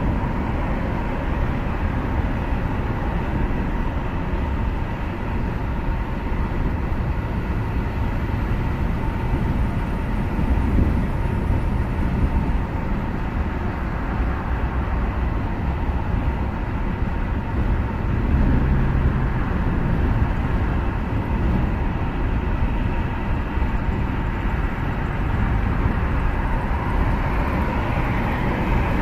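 Steady low road and engine rumble of a car driving in slow highway traffic, heard from inside the cabin.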